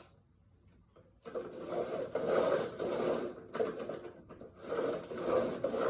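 Toro lawn mower wheel rubbing and grinding as it is turned, in three long passes starting about a second in: the wheel is still too tight on its axle, which the owner puts down to a washer left out.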